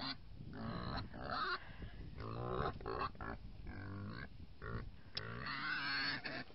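A herd of pigs and piglets grunting and oinking in a quick run of short calls as they rush out into the yard.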